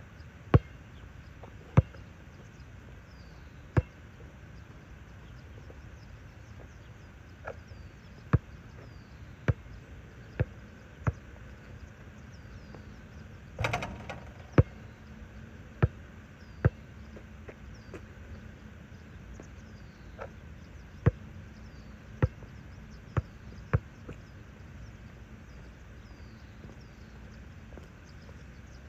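Basketball bouncing on an outdoor asphalt court: single sharp thuds at irregular spacing, stopping after about 24 seconds. About 14 seconds in, a louder clustered hit with a short ring as the ball strikes the rim and backboard.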